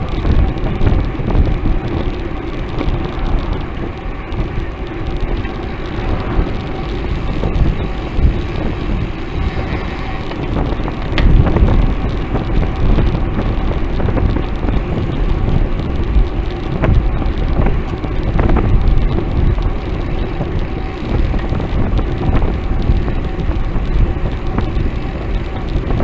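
Wind rumbling on a bicycle-mounted camera's microphone at riding speed, mixed with steady tyre and road noise, with a few small knocks from road bumps.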